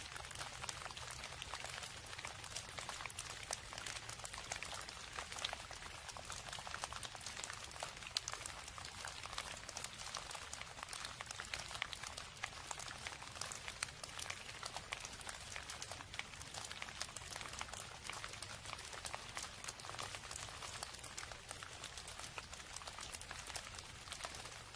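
Steady rain: an even hiss full of countless fine drop ticks, over a faint low hum.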